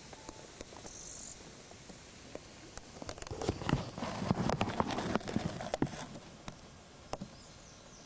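River gravel crunching and clicking close by. It is heaviest for about three seconds in the middle, with scattered single clicks before and after.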